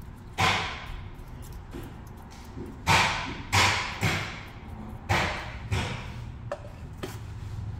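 A string of about eight sharp knocks, irregularly spaced, each with a short ring: metal brake parts, the caliper bracket and its slide pins, being knocked and worked by hand.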